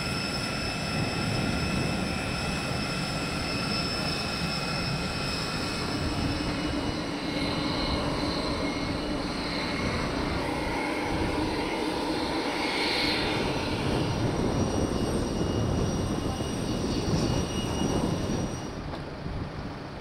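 Steady engine and machinery noise of aircraft and ground-handling equipment on an airport cargo apron, with a high whine over it for the first several seconds.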